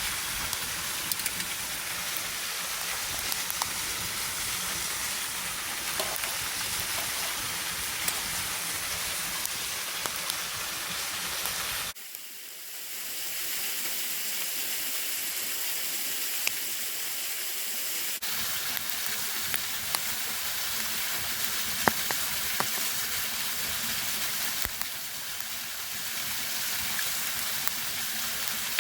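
Waterfall rushing steadily, with scattered sharp pops from a crackling wood campfire. The rush thins out about twelve seconds in and fills out again some six seconds later.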